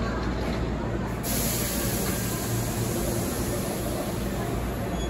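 Hankyu 3300-series commuter train standing at the platform with a steady low hum, then a sudden hiss of compressed air starts about a second in and runs on for several seconds as the air brakes release for departure.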